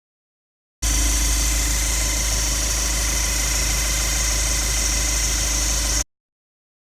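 Mitsubishi 4D56 common-rail diesel engine running steadily, the kind of recording made to show the whirring noise this engine can develop. The sound cuts in abruptly just under a second in and cuts off abruptly about five seconds later.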